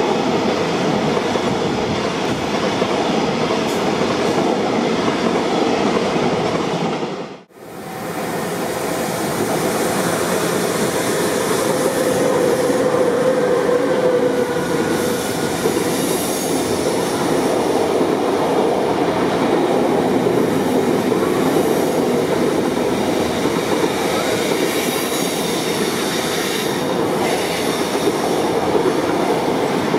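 Freight train of container wagons rolling past on the near track: a steady, loud rumble and rattle of steel wheels on the rails. The sound cuts out abruptly about seven seconds in and swells back within a second.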